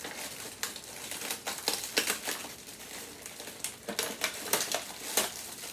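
Clear plastic packaging crinkling and rustling as a sleeve of waffle cones is worked open by hand, with irregular sharp crackles throughout.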